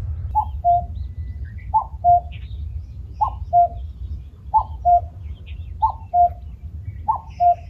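Common cuckoo calling its two-note "cuck-oo", a higher note dropping to a lower one, repeated six times about every 1.3 seconds over a steady low rumble. It is a male calling to find a mate.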